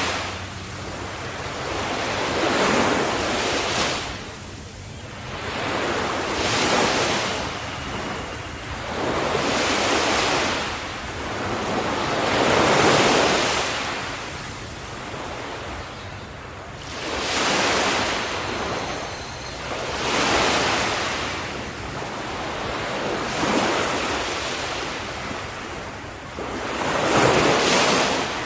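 Small ocean waves breaking on the shore, a hiss of surf that swells and ebbs about every three seconds.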